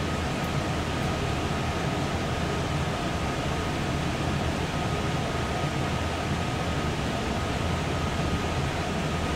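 Bosch IDS 2.1 heat pump system running steadily in heating mode: an even hum of fan and moving air, with a faint steady high tone over it.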